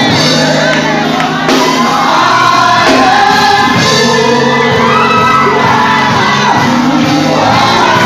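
Live gospel praise singing: a lead vocalist and backing singers singing into microphones over loud amplified band music.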